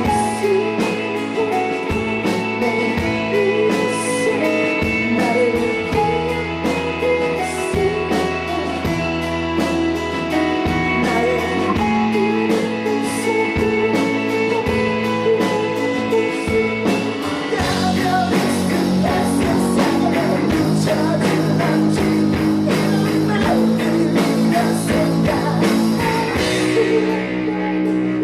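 Rock band playing live: guitars over a steady drum beat in a mostly instrumental passage, the playing growing fuller and busier about two-thirds of the way through.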